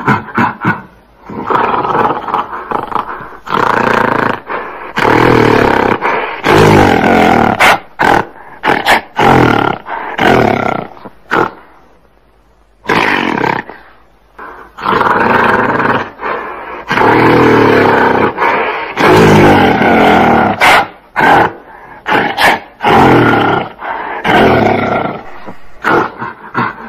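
Gorilla vocalizing: a run of loud roars and short grunts broken by brief gaps, with a longer pause about halfway through.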